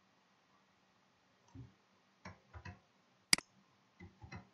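Computer mouse and keyboard in use: a handful of soft clicks and taps, with one sharp double mouse click (press and release) about three seconds in.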